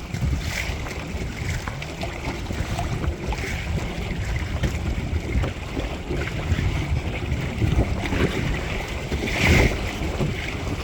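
Wind buffeting the microphone and water rushing and splashing along the hull of a small Windrider 17 trimaran under way, with one louder splash near the end.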